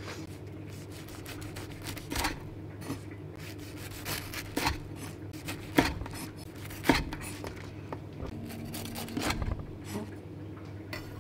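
Kitchen knife cutting through toasted bread on a wooden cutting board, trimming the crusts off a katsu sandwich and halving it: several separate cutting strokes a second or two apart, over a low steady hum.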